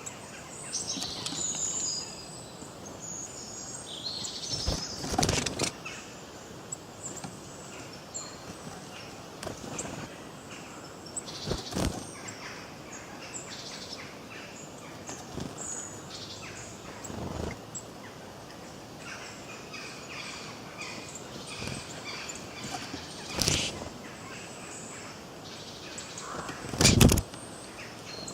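Forest songbirds chirping and calling over a steady background hiss. A few sudden thumps cut across it, the loudest near the end.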